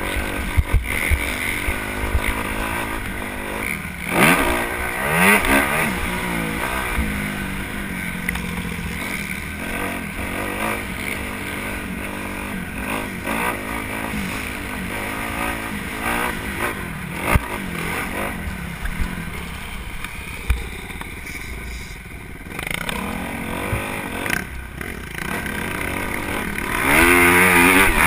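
Dirt bike engines running and revving, rising and falling in pitch as the throttle opens and closes; they are loudest near the end.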